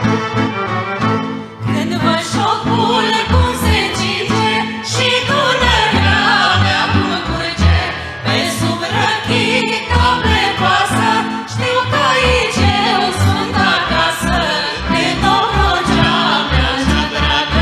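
Romanian folk ensemble music: a violin section playing over a steady bass beat, joined about two seconds in by several voices singing a folk song with the band.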